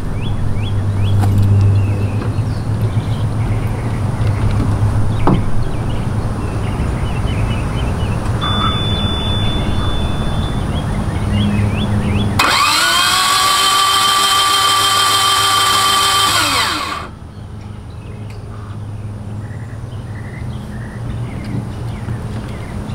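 An electric motor on the boat, switched on at the helm, whines for about four and a half seconds: it spins up with a quick rise in pitch, holds a steady tone, and winds down. A thin high beep sounds for about two seconds a few seconds before it.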